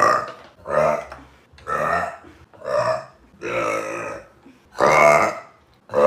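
A young woman burping loudly over and over, about six burps in a row, each roughly half a second long and about one a second apart.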